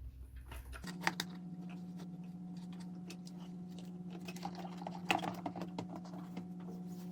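Light clicks and knocks from the plastic body case of an electric pressure rice cooker being handled and fitted back together, with two sharper clicks about a second in and near the middle. A steady low hum runs under it from about a second in.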